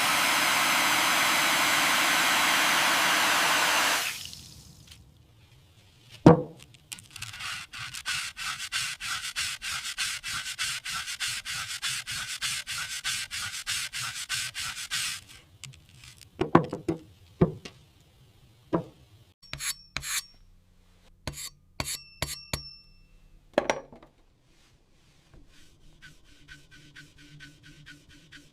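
Rust-removal work on an old tool. A steady loud hiss cuts off about four seconds in, followed by a single knock. Then come about eight seconds of quick, rhythmic rubbing strokes on the rusty metal, and finally a run of sharp knocks and clinks, some of them ringing briefly.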